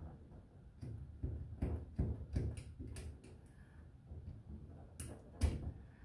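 Light clicks and small knocks of hands and a tool working a brass compression fitting on a lubrication manifold, an irregular run of ticks in the first half and two sharper clicks about five seconds in.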